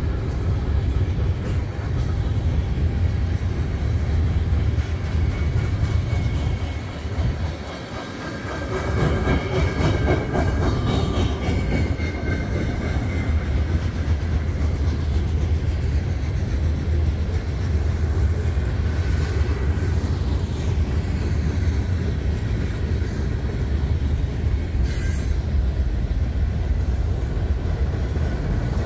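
Union Pacific freight cars rolling past close by with a steady rumble and clatter of wheels on the rails. Brief high squealing tones come in about ten seconds in.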